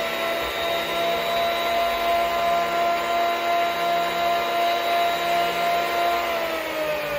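Hitachi P50F automatic thickness planer running with no board in it, a steady motor-and-cutterhead whine. About six seconds in the whine starts falling in pitch as the machine is switched off and spins down.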